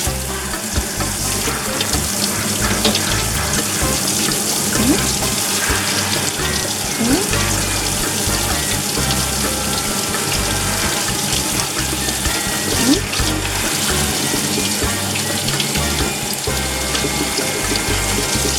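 Water running steadily from a tap, rinsing baking soda off a greasy range-hood filter. Background music plays underneath.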